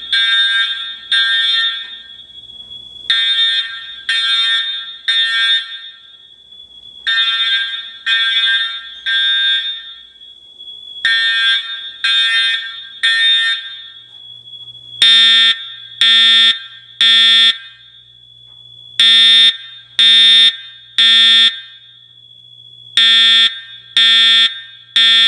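Fire alarm horns sounding the temporal-3 evacuation signal: three blasts about a second apart, a pause, then three again, repeating every four seconds, with a steady high tone continuing between them. From about fifteen seconds in the blasts become louder and harsher.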